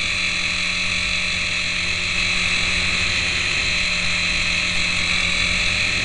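Syma S107G micro RC helicopter's small electric motors and coaxial rotors running steadily, heard up close from a camera taped beneath it: an even, high whirring whine.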